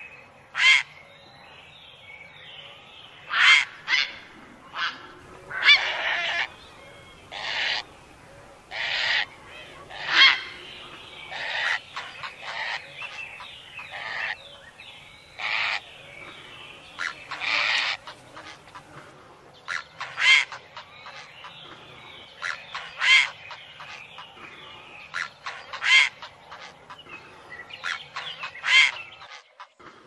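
Herons giving loud, harsh calls, about twenty short ones at irregular intervals, with fainter bird chatter going on steadily behind them.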